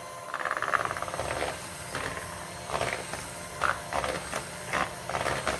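Cornbread batter being mixed in a bowl: a scraping stretch in the first second or so, then a series of short, separate wet slaps and scrapes.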